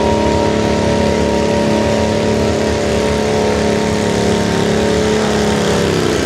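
Stock V-twin tractor engine running steadily at high revs under pulling load, its pitch falling away near the end as the revs drop.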